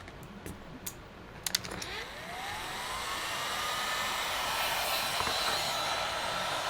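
A few clicks, then a heat gun switched on: its fan motor spins up in a rising whine and settles into a steady blowing hiss. This is the heat used to soften the adhesive before an iPad screen is pried off.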